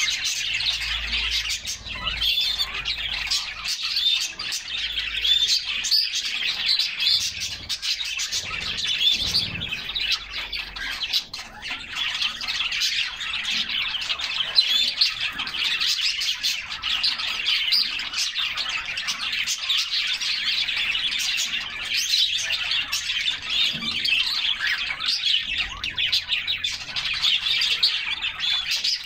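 A group of canaries chirping and singing, a dense, unbroken twittering of many overlapping short high notes.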